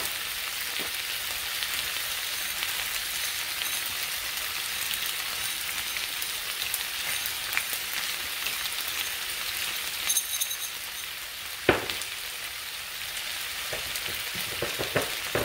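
Tomatoes, onion and bell peppers sizzling steadily in oil in a frying pan. There are a few light ticks and one sharp click about three-quarters of the way through.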